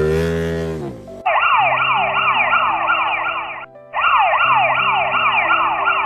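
Emergency-vehicle siren sound effect in a fast yelp, quick rising whoops about three a second, breaking off briefly once partway through, over soft background music. Before it starts, a lower pitched sound slides down and fades out in the first second.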